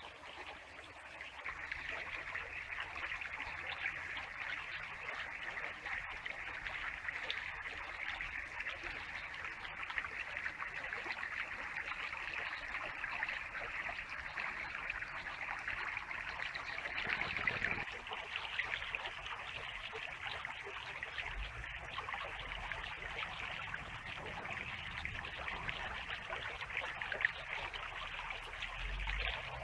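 Small stream running over stones: a steady trickling, babbling rush of water.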